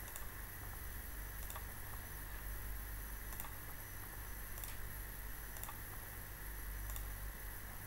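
Faint single computer mouse clicks, about five spread irregularly a second or so apart, over a steady low electrical hum and hiss from the recording.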